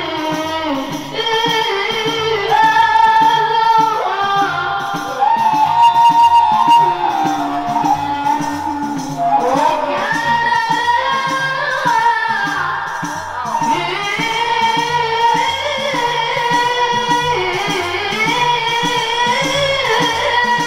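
A boy singing a Maulid praise song (qaswida) into a microphone, holding long, gliding notes over a steady drum beat with jingling percussion.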